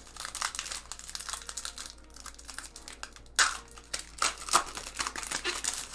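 Foil wrapper of a Topps 2019 Series 1 baseball card pack being torn open and crinkled by hand, a dense crackling with a few sharper, louder crackles past the middle.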